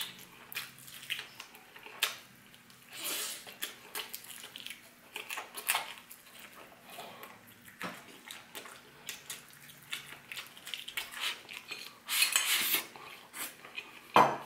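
Eating at the table: crisp fried chicken being chewed, with a run of short crunches and clicks, then a fork and spoon scraping and clinking on a ceramic plate as rice is served near the end.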